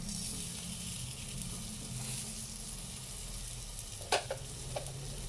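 Radish-leaf patty sizzling steadily in hot oil in a frying pan, with a sharp knock about four seconds in and a lighter one just after.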